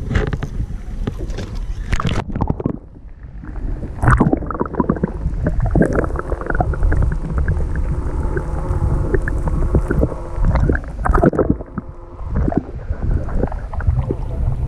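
Water gurgling and sloshing around a camera held underwater, heard muffled through the housing. A steady hum and many small clicks run underneath. The sound turns duller for a moment about three seconds in and again near the end.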